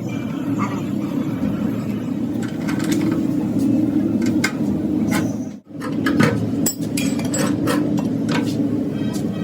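Workshop noise: a steady low machine hum with scattered sharp metal clinks and taps, the taps growing frequent from about two and a half seconds in. There is a brief break a little after five seconds.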